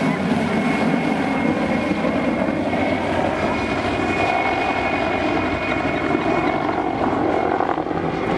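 PZL-Świdnik Mi-2 helicopter flying overhead: steady rotor and twin-turboshaft engine noise, with a thin high turbine whine running through it.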